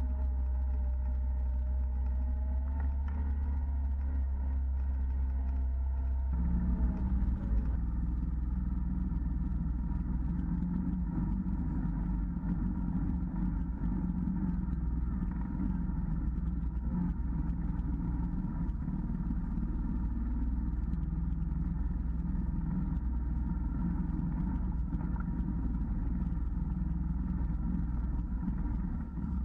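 Side-by-side UTV engine running under way on a trail as a steady low rumble, with a whine that rises and falls in pitch during the first few seconds. The sound changes abruptly about six seconds in to a denser, rougher rumble that then holds steady.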